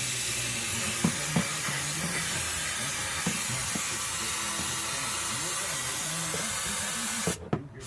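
Aerosol brake cleaner spraying in a long steady hiss, with a couple of light knocks about a second in; the spray cuts off abruptly near the end and starts again.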